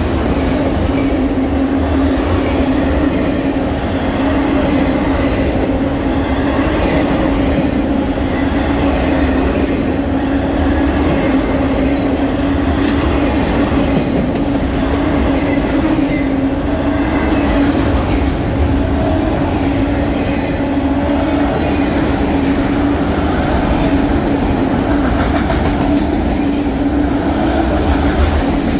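A long freight train of autorack cars rolling steadily past at close range: a loud, unbroken rumble of wheels on rail, with a steady hum underneath and an occasional clatter from the cars.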